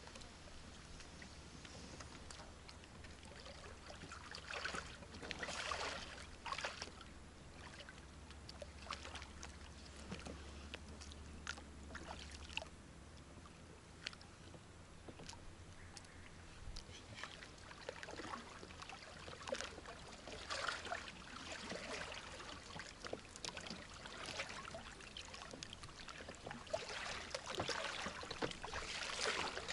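Shallow water sloshing and splashing around a person's legs and a small boat's hull as he wades and handles the boat, coming in irregular surges, loudest near the end.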